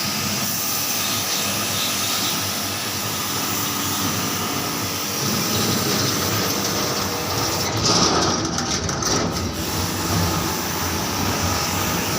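A steady machine running with a loud hiss. It changes briefly about eight seconds in, with a louder, rougher stretch lasting a second or two.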